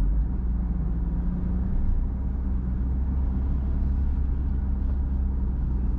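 A car being driven: a steady low rumble of engine and road noise, with a faint even engine hum above it.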